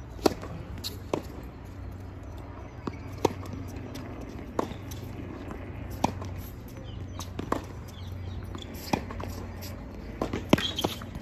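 Tennis rally on an outdoor hard court: racket strikes and ball bounces, a sharp pop about every one and a half seconds, with a quick cluster of hits near the end.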